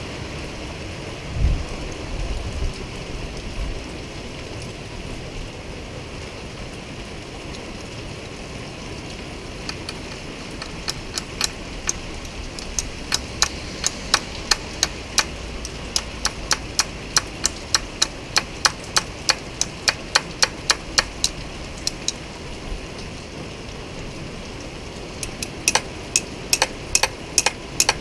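Light, sharp metallic taps, about three to four a second, as a new filter is tapped into a fuel injector of a Yamaha HPDI outboard. The taps run for about ten seconds starting some ten seconds in, and come again near the end.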